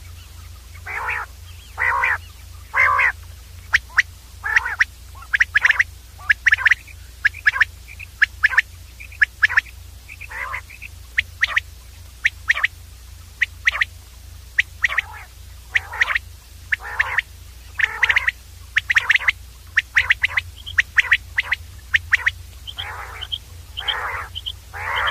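Common quail calling again and again: quick runs of short, sharp, high notes mixed with broader, lower, hoarser notes, over a faint steady low hum.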